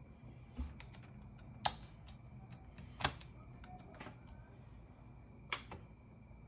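About five sharp clicks and taps at irregular intervals over a steady low hum.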